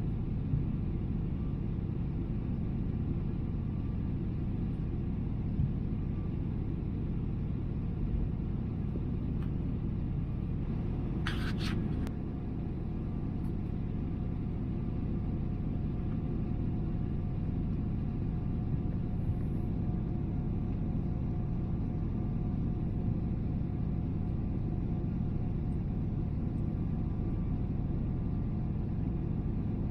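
Steady low roar inside the cabin of a Boeing 777-300ER in flight: its GE90-115B engines and rushing air heard from a window seat behind the wing. About eleven seconds in there is a brief sharp click. Just after it the roar drops slightly, and a faint steady hum carries on.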